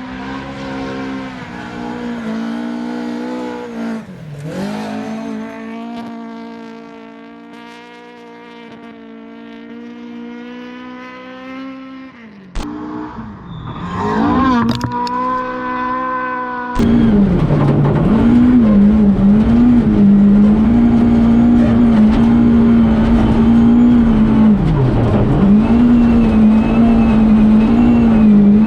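Rally car engine held at high revs flat out on gravel, with brief dips in pitch as the driver lifts or changes gear. The sound cuts abruptly twice between takes, and it is louder and closer for the last part.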